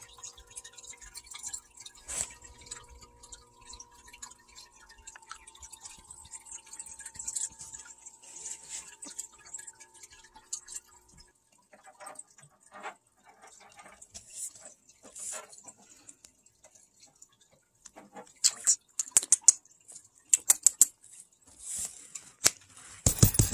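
Water dripping and trickling in a home aquarium, with a faint steady hum underneath that stops about eleven seconds in. Near the end, a quick run of loud, sharp clicks and taps.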